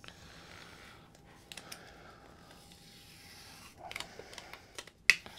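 Thin plastic film being peeled off the back of an instrument-cluster LCD glass panel by hand: faint rustling, then a few sharp crinkles and clicks near the end.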